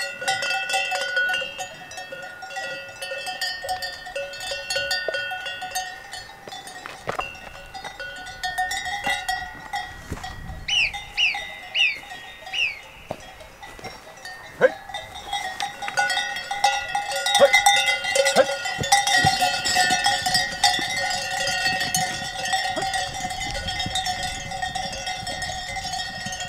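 Cowbells on a small herd of grazing cattle, clanking and ringing irregularly: several bells overlap, each leaving a ringing tone. About halfway through there is a short run of about five quick high chirps.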